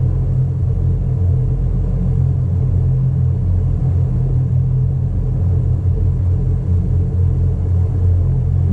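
Towboat engine running steadily: a loud, even low rumble that holds without change.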